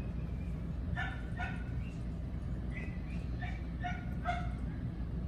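Two-week-old toy Cavapoo puppies squeaking and whimpering: a string of short, high-pitched yips that starts about a second in, over a steady low hum.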